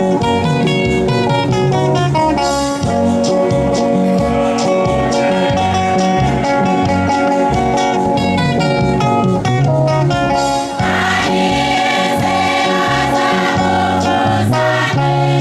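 Church choir singing in harmony to electric guitar accompaniment, amplified through a PA speaker.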